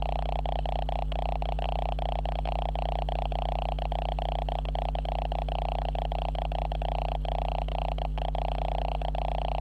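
Steady electrical noise from the video camera itself: a constant low hum under a strong, buzzy whine, broken by frequent brief dips.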